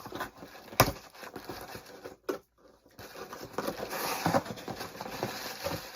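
Hands handling and scraping at a package as it is opened, with irregular scratching and rustling, a sharp click a little under a second in, a brief gap, then denser rustling.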